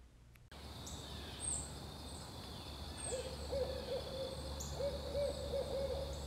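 Barred owl calling: a rhythmic run of hoots starting about three seconds in, over a steady high-pitched hum.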